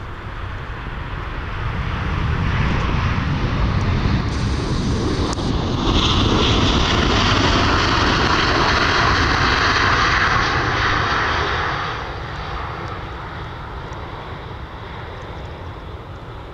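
Boeing 787-9 Dreamliner jet engines running, a steady roar with a hissing edge that builds over the first few seconds, holds loudest for several seconds and eases off about twelve seconds in. Gusty wind adds a low rumble on the microphone.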